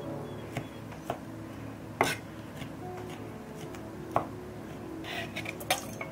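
Chef's knife chopping melon flesh on a wooden cutting board: a few separate knocks of the blade on the wood, the loudest about two seconds in. Near the end the blade scrapes the chopped melon off the board into a small saucepan. Soft background music with steady tones underneath.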